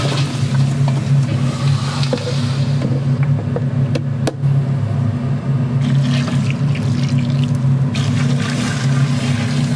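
Kitchen noise: a steady low machine hum under a hissing, water-like rush that swells and fades, with two sharp clicks about four seconds in.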